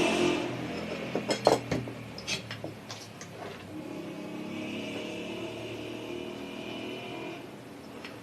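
Sewing machine's small electric motor winding down as it is switched off, followed by a few sharp clicks and knocks, then a quieter steady whine for about three seconds that stops shortly before the end.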